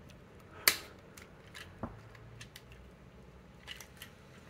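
Plastic parts of a Transformers Studio Series 86 Optimus Prime action figure clicking as hands fold and reposition its legs: one sharp snap about two-thirds of a second in, then a few fainter ticks.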